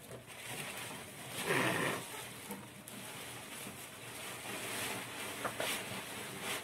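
A group of goats feeding at a trough, rustling and chewing leafy forage, with a short louder cry that falls in pitch about a second and a half in.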